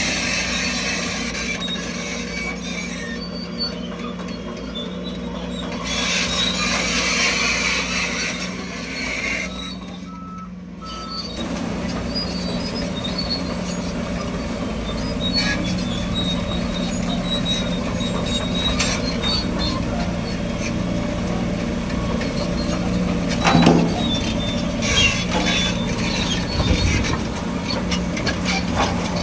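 Diesel engines of heavy earthmoving machinery, a bulldozer and dump trucks, running steadily with a constant low hum. The sound dips briefly about ten seconds in, and there is a sharp clank a little after twenty seconds.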